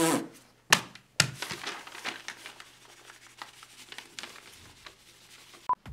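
Sheets of paper being handled, with two sharp rustles about a second in, then a faint, irregular scratching of writing on paper.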